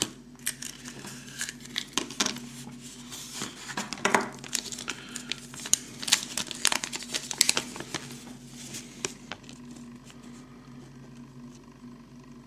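Folded paper instruction leaflet from a Kinder Surprise capsule being pulled out and unfolded by hand: a run of paper crinkles and crackles that dies down after about nine seconds.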